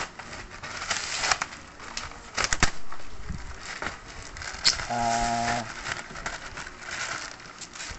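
Bubble wrap and taped plastic wrapping crinkling, crackling and tearing in irregular rustles and sharp snaps as it is pulled off a fishing rod.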